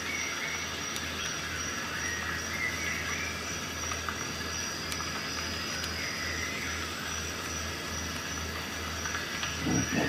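Steady background hiss with a constant high-pitched whine and a low pulsing hum. The small screwdriver turning the multi-tool screw adds no clear sound, apart from a faint handling thump near the end.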